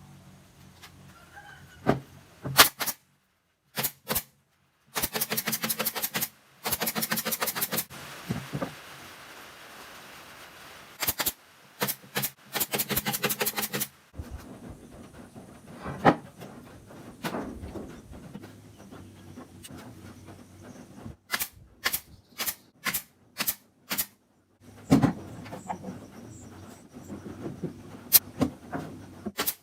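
Workshop tool noise: several one- to two-second bursts of rapid, evenly spaced rattling strokes, like a power tool or driver, with single sharp knocks and clicks between them.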